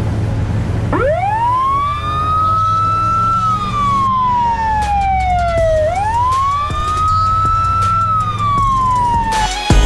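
Fire truck siren wailing: it rises quickly about a second in, holds high, slides slowly down, then rises, holds and slides down once more before cutting off near the end. Music plays underneath.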